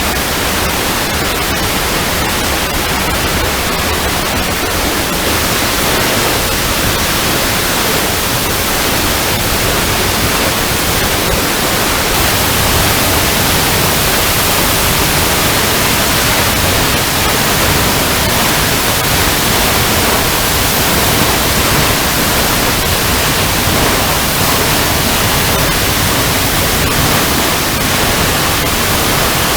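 Waterfall water rushing steadily and loudly over rocks, an even hiss with no breaks.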